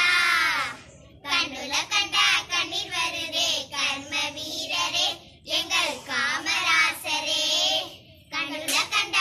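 A group of young schoolgirls singing together, phrase by phrase with short breaks between the lines.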